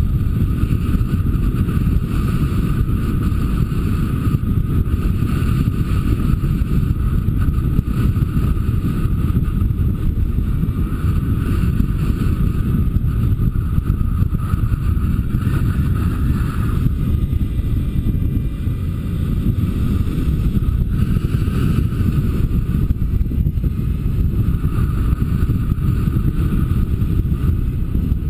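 Wind from a paraglider's flight buffeting the camera microphone: a steady, loud low rumble with a fainter rushing hiss above it.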